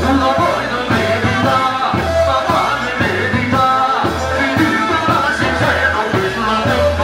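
Live music with a singer and a strong bass beat, amplified through horn loudspeakers on a festival tower.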